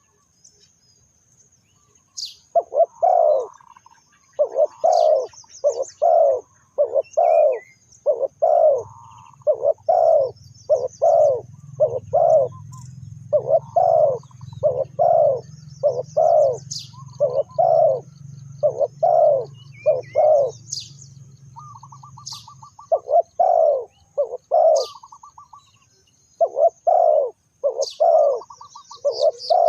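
Spotted doves cooing over and over: short, low coos in quick groups, paused briefly around 7–9 s and 21–23 s. Small birds chirp high above them.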